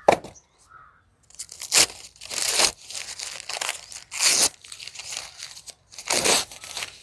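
Packaging handled: a sharp tap, then a run of irregular crinkling, scratchy rustles as a paper-wrapped packet of yellow sticky traps is pulled from its cardboard box and turned in the hands.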